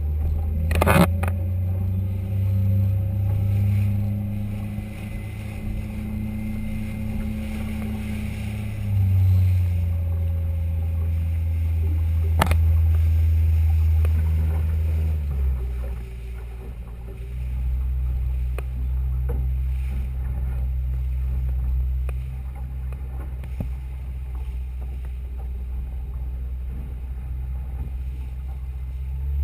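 Boat engine running as a steady low hum. Its pitch steps down a little about halfway through, and two sharp clicks cut across it.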